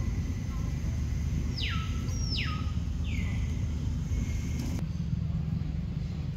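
Steady low rumble, with three short whistle-like calls falling steeply in pitch between about one and a half and three and a half seconds in.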